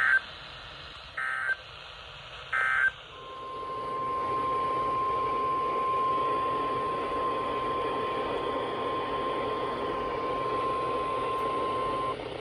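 Weather radio alert audio: three short, loud EAS/SAME data bursts about a second apart, the end-of-message signal. Then comes static hiss with a steady single alert tone near 1 kHz, the NOAA Weather Radio warning alarm, lasting about nine seconds before it cuts off.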